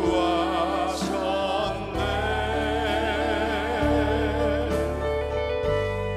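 A slow gospel song: a man singing with vibrato, joined by backing singers, over keyboard accompaniment. The bass changes chord every couple of seconds.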